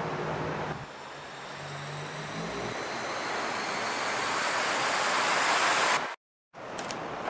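A white-noise riser: a hiss that swells steadily louder for about five seconds, then cuts off suddenly into half a second of dead silence.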